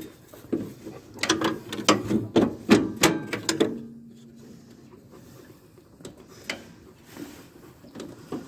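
Metal clicking and clanking from hand-tool work on a lawn tractor: a quick run of clicks for about three seconds, a brief low hum, then a few scattered clicks.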